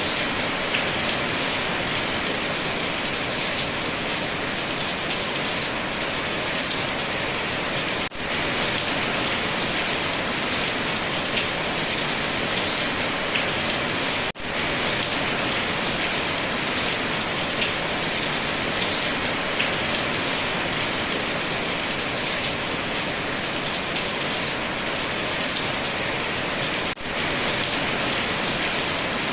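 Steady rain falling, a dense even patter of drops, with three brief dips in level.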